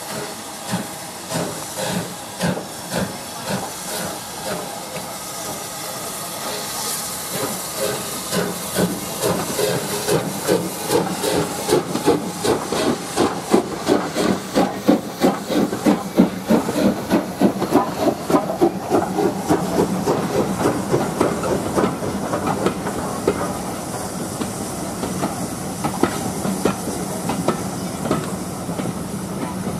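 USATC S160 2-8-0 steam locomotive pulling away with a passenger train, hissing steam and giving regular exhaust beats that quicken and grow louder as it passes. Its coaches then roll by with a steady rumble and lighter clicking from the wheels.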